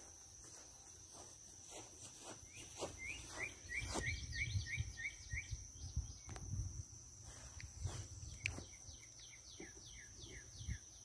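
Faint outdoor background: a steady high insect drone, and a bird calling in two runs of quick repeated notes. Scattered knocks and rustles come from the camera being handled close up.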